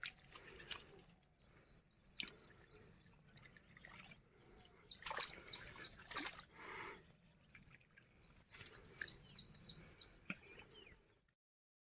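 Faint birdsong outdoors: a short high note repeated evenly about twice a second, joined by bursts of quick chirping about five seconds in and again about nine seconds in.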